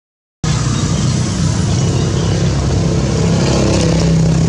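Silence for the first half-second, then a steady motor-vehicle engine hum with road noise cuts in and runs on, loud and even.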